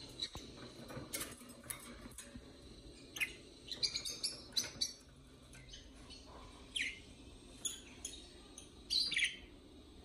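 Budgerigars chirping in short, high calls, a quick run of them about four seconds in and a falling chirp near seven seconds.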